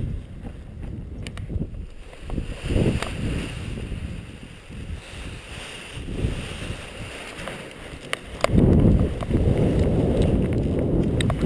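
Wind rushing and buffeting on the camera microphone, jumping abruptly louder about eight and a half seconds in and staying loud, with a few sharp clicks.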